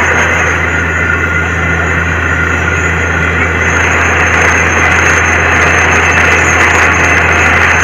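Borewell drilling rig's heavy engine running steadily: a loud low hum under a dense rushing noise.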